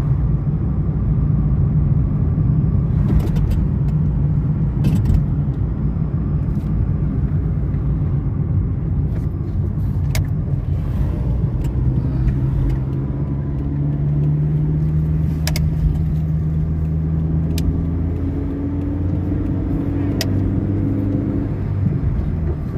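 Chevrolet Corsa driving, heard from inside the cabin: a steady engine hum and road noise, with the engine note changing pitch about halfway through. Several short sharp clicks or knocks are heard along the way.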